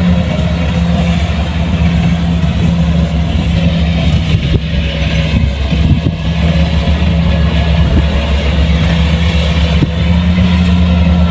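Kubota rice combine harvester's diesel engine running steadily under load, with a brief dip in level about five to six seconds in.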